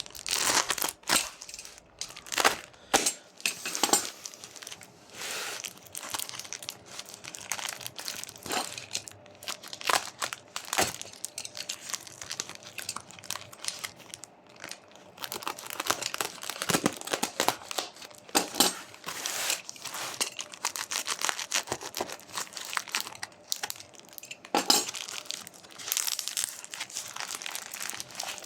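Packaging being unwrapped by hand: irregular crinkling and rustling with crackly bursts, busiest near the start and again in the second half.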